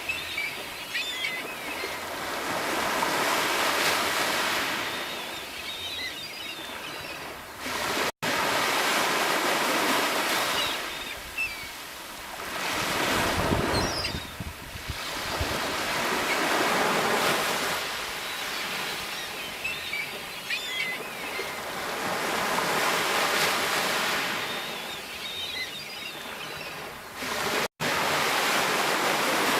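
Sea waves breaking and washing up on the shore, the surf noise swelling and ebbing with a new wave every three to five seconds. The sound cuts out for an instant twice.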